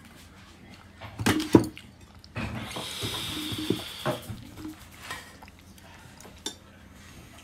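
Dishes and cutlery clinking on a table: a few sharp clinks about a second in and more around four seconds, with a steady hiss between them.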